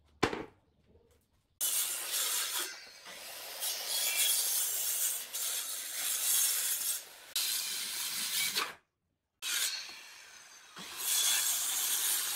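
A wooden pallet knocks once onto a concrete floor, then a corded circular saw cuts through weathered pallet boards in several loud stretches that start and stop abruptly.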